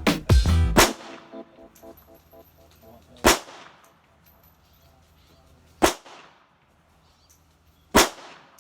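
Three single gunshots at a shooting range, spaced about two and a half seconds apart, each with a short echoing tail.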